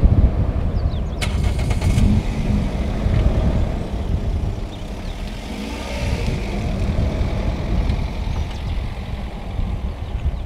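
Car on a game-drive road running slowly, its engine giving a low uneven rumble, with a short run of sharp clicks about a second in.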